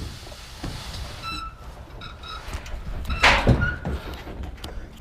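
A few short electronic beeps, then a door banged shut with a loud sharp bang about three seconds in, followed by a smaller knock.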